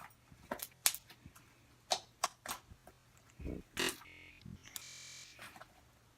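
Slime being squished, giving a scatter of sharp little pops and clicks. A louder squelch comes about three and a half seconds in, followed by a short steady hum.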